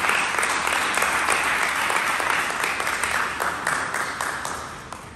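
A group of people clapping together in steady applause, which dies away in the last second.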